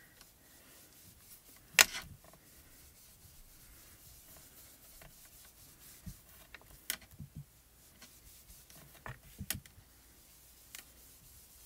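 Ink blending tool swirled and dabbed over cardstock, a faint soft rubbing on the paper, with a few sharp taps, the loudest about two seconds in.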